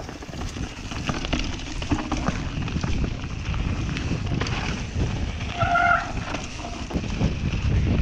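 Wind buffeting a handlebar-mounted camera's microphone while the mountain bike rattles and knocks over a snowy trail. A short pitched squeal comes about six seconds in.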